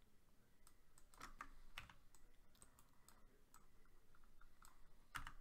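Faint, irregular clicks of a computer mouse used for digital drawing, a few a second, with a slightly louder cluster about a second in and another near the end.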